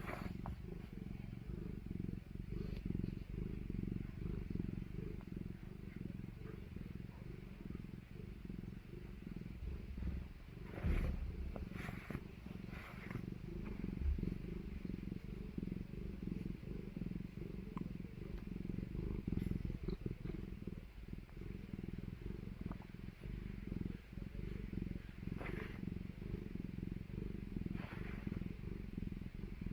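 Domestic cat purring close up, a steady low rumble that runs on without a break. A few brief soft sounds rise over it about eleven seconds in and twice more near the end.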